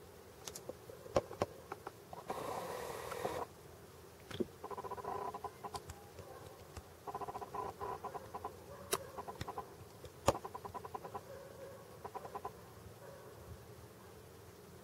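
A bird calling in several short runs of rapidly repeated notes, with a second-long burst of hissy noise about two seconds in and a few sharp clicks.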